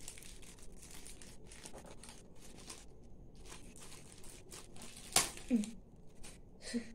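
Plastic packaging crinkling and rustling as a stuck plastic stencil ruler is worked loose by hand, with one sharp click about five seconds in.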